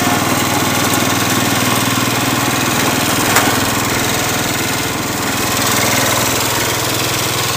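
Cub Cadet 107 garden tractor's Kohler K-241A 10 hp single-cylinder engine running steadily, with one sharp click about three and a half seconds in.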